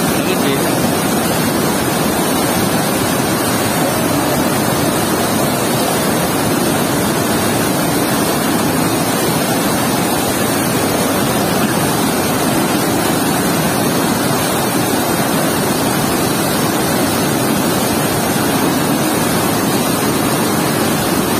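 Water rushing out through a weir's sluice gate and churning into whitewater against a concrete pier: a loud, steady rushing noise.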